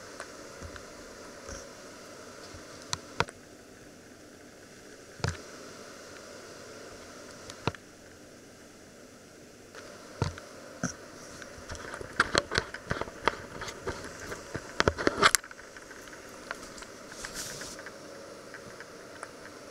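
Handling noise of a camera on a pole being gripped and moved: scattered sharp clicks and knocks, with a dense run of them between about 12 and 15 seconds in, over a steady background hum.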